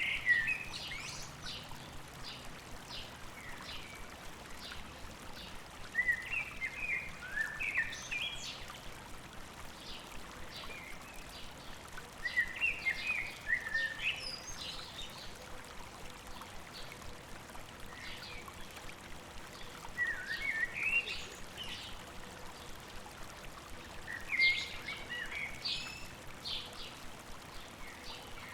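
A songbird singing short bursts of chirping, warbling notes, repeated every few seconds, over the steady rushing of a river.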